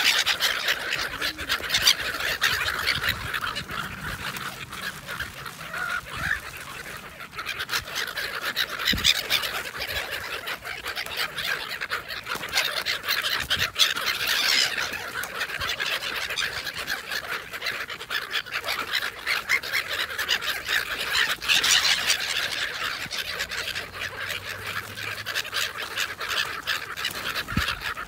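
A feeding flock of black-headed gulls calling continuously with harsh, overlapping squawks, louder in several flurries, amid the flapping of wings.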